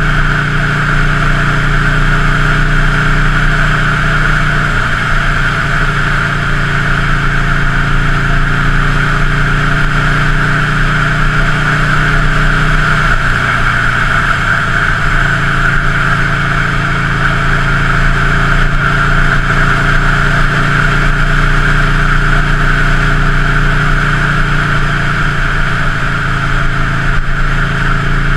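Buell Lightning XB9's V-twin engine idling steadily, its pitch shifting slightly a few seconds in and again near the middle.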